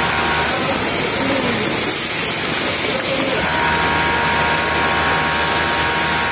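Industrial flatlock sewing machine running at speed with a steady whine while hemming a T-shirt. It stops about half a second in and starts up again after about three seconds. A constant machine noise hisses underneath.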